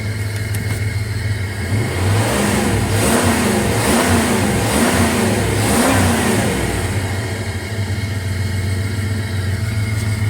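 2000 Dodge Durango's engine running at idle, revved up and back down four times in quick succession about a second apart, near the middle. The truck has been stalling once warm and is being checked for rough running.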